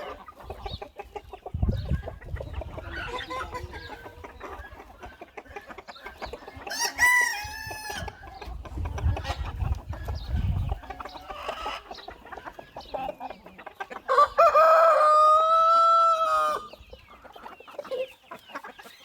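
Chickens clucking throughout, with a shorter call about seven seconds in and a rooster crowing loudly for a couple of seconds about fourteen seconds in.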